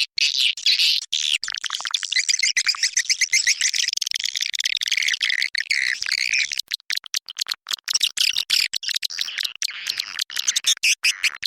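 Recorded swiftlet calls: a dense, continuous stream of quick high twittering chirps. This is a lure call played to draw swiftlets into a one-storey swiftlet house.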